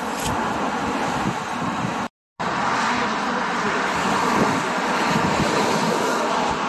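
Steady roar of passing highway traffic, with a crisp bite into an apple a fraction of a second in. The sound drops out completely for a moment about two seconds in.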